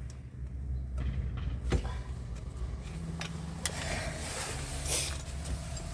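A motor vehicle's engine hums steadily, with a few sharp clicks and a brief hiss partway through.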